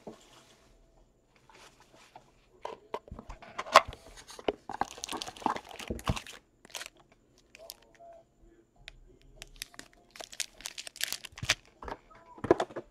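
Cardboard trading-card hobby box being opened and a foil-wrapped card pack crinkling as it is pulled out and handled: scattered short rustles, crinkles and taps with quiet gaps between them.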